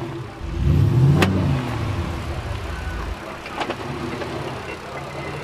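Jeep Grand Cherokee engine revving up and easing off as it pulls the SUV through a deep muddy rut, loudest about a second in, then running steadier at lower revs. Two sharp knocks come through, about a second in and again a couple of seconds later.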